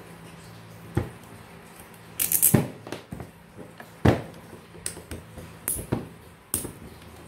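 A screwdriver and small metal parts knocking and clinking against an electric fan motor's metal housing as it is taken apart: about seven sharp, irregularly spaced knocks, several with a bright metallic ring.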